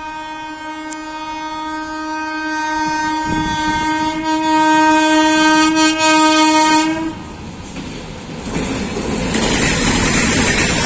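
Indian Railways WAP-7 electric locomotive sounding its horn in one long blast that grows louder as the train approaches, then cuts off suddenly about seven seconds in. From just after that, the locomotive and its coaches pass close by at speed with a loud rushing rattle of wheels on the rails.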